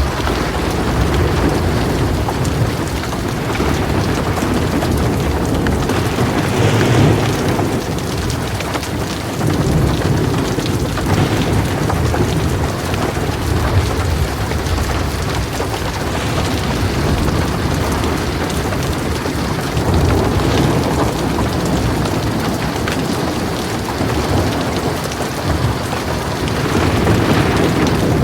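Heavy rain falling steadily, with low rolls of thunder that swell and fade several times.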